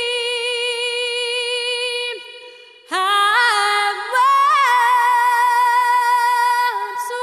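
Solo female voice singing long held notes with vibrato. A held note breaks off about two seconds in, and after a short pause a new phrase rises and holds.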